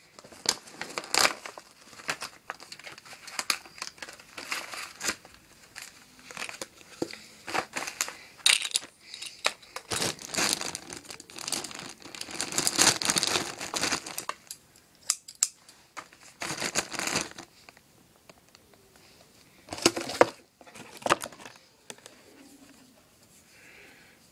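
A plastic zip-lock bag and wrapping crinkling and rustling as they are handled, in irregular bursts that grow sparse and quieter near the end.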